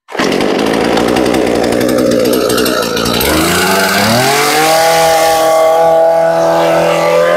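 Two-stroke engine of a 38 cc Husqvarna chainsaw running, uneven for about three seconds. Its pitch then rises and holds steady at a higher speed.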